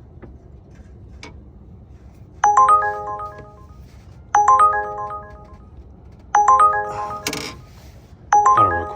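Phone ringtone: a short melodic phrase of several quick chiming notes, repeating about every two seconds, four times. A brief rustle near the third ring and a few faint clicks before the ringing starts.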